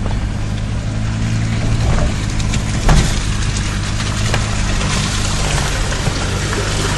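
Off-road vehicle engine running steadily at low revs over a noisy rumble, with a sharp knock about three seconds in.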